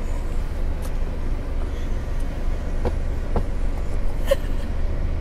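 Steady low drone of a car's engine and road noise heard inside the cabin while driving, with a couple of faint brief sounds in the second half.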